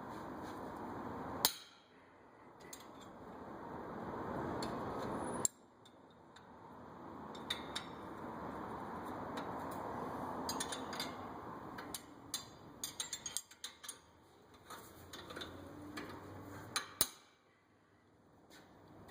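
Wrench and socket clinks and metal knocks while the front brake caliper bracket bolts are loosened and the bracket is handled. Scattered sharp clicks, with a quick cluster in the middle and a loud single knock near the end, over a steady hiss.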